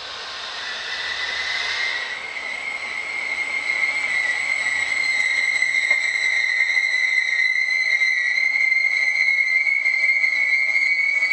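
Trenitalia Vivalto double-deck passenger train rolling past along the platform. The coaches rumble, and about a second in a steady, high-pitched metallic squeal from the wheels sets in and holds on.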